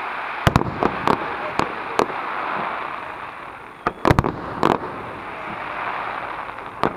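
Fireworks display: shells bursting overhead in a series of sharp bangs, irregularly spaced, with the loudest, densest cluster about four seconds in. A steady hiss runs underneath.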